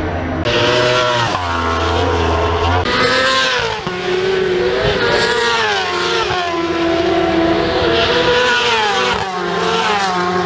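Racing motorcycle engines at high revs passing on the circuit, the pitch climbing under acceleration and dropping sharply at gear changes and as the bikes go by, several times over.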